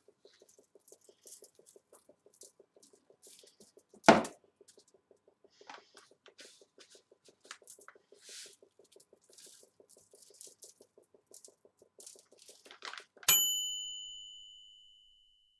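Faint clicks and rustles of seasoning on aluminium foil over a low pulsing hum, with one sharp knock about four seconds in. Near the end a single bright bell ding rings out and fades over about two seconds, like a toaster oven's timer bell.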